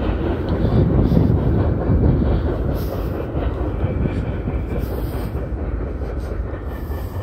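Rumble of a freight train's cars rolling away on the rails, slowly fading as the end of the train recedes.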